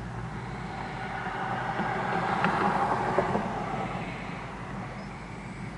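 Diesel locomotive's engine running as it creeps through a rail yard pulling covered hopper cars, with a swell of noise about two to four seconds in and a few sharp clicks from the wheels on the rails.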